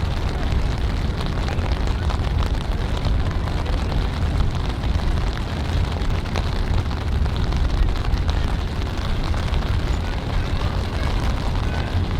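Steady rain falling on an umbrella held over the microphone, a dense run of small ticks over a constant low rumble.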